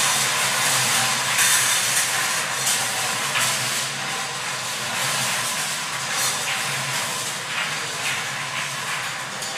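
Several hand-cranked wire lottery cages spinning, the numbered balls tumbling and clattering against the steel bars in a dense rattle of clicks that slowly fades toward the end.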